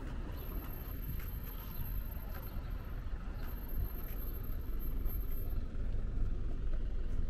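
City street traffic: a steady low rumble of motor vehicles, with a box truck's engine running close by.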